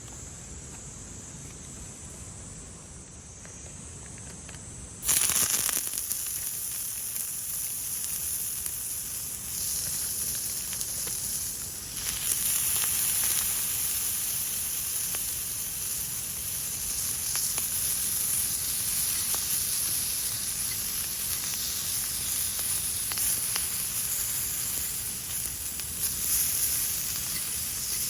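Food sizzling in a hot pan, starting suddenly about five seconds in and going on steadily; before that, insects chirring faintly.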